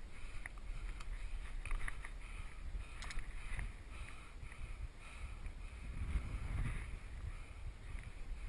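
Wind buffeting the microphone in a low rumble, with a few sharp clicks and scrapes of hands and boots on limestone as the climber scrambles up rock.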